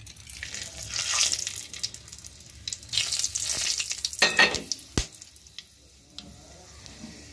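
Whole spices (dry red chillies, bay leaf, whole garam masala) sizzling and crackling in hot oil in an aluminium kadai as a tempering. The sizzle dies down after about five seconds, with one sharp knock about five seconds in.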